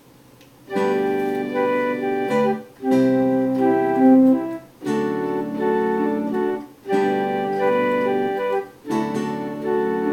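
Keyboard with an organ-like sound playing sustained chords as a song's instrumental intro, starting under a second in. Each chord is held about two seconds, with short breaks between them.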